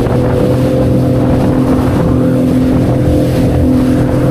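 Sea-Doo FishPro Scout personal watercraft running at a steady cruising speed through choppy waves, loaded with three riders. Its engine and jet pump hold one even tone over the rush of water under the hull.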